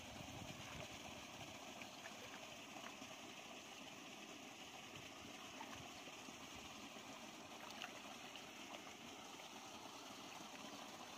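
Faint, steady outdoor hiss with small sloshes and ticks of muddy water as hands grope through a shallow flooded ditch.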